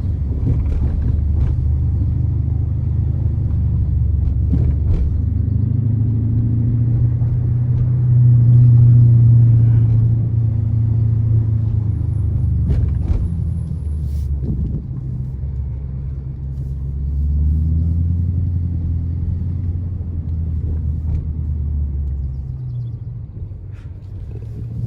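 Dodge R/T's V8 engine and exhaust running while driving, a deep steady rumble that swells louder twice, first about a third of the way in and again past the middle, then eases off near the end.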